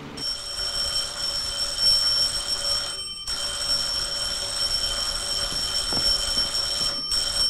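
Electric bell ringing continuously, held on with two short breaks about three and seven seconds in: someone leaning on the doorbell to rouse the house.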